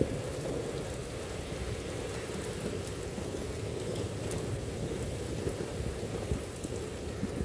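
Heavy rain pouring down steadily, with a continuous low rumble underneath and scattered sharp ticks of drops.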